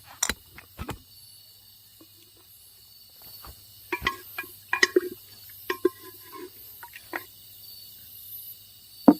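Crickets chirring steadily, with scattered short clinks and knocks of dishes and utensils being handled at the meal. The loudest knock comes near the end.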